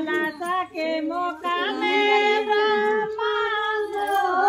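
Women singing a devotional folk song together without accompaniment, the melody wavering and then settling on a long held note through the middle.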